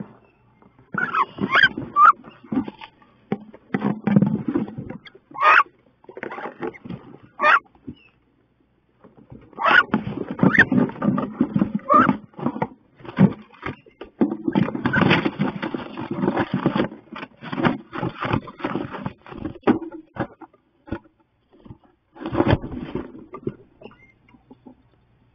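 Two female wood ducks fighting inside a wooden nest box: scuffling, wing-beating and scraping against the wooden walls in loud bouts with short pauses, mixed with brief sharp cries. It dies away near the end as one hen settles.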